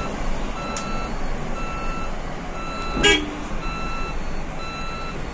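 Cabin rumble of an electric sleeper bus on the move, with an electronic warning beeper repeating steadily about twice a second. About three seconds in there is one short, loud clatter.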